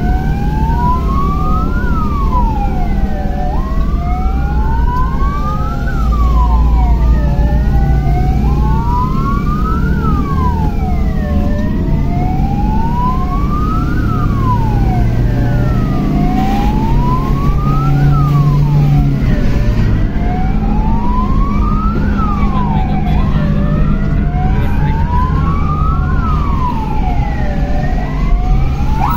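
Ambulance sirens wailing, rising and falling in pitch about once every two seconds, with a second siren overlapping out of step at times, over vehicle engine and road rumble.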